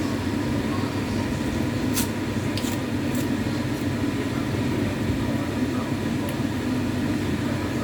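A steady low rumble, like a fan or machine running in the background, with a few short clicks about two to three seconds in.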